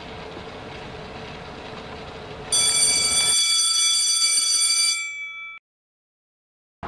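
Steady background noise with a faint hum, broken about two and a half seconds in by a loud, steady high-pitched electronic tone with a buzzy, many-layered sound. The tone fades out about three seconds later and the sound cuts off completely.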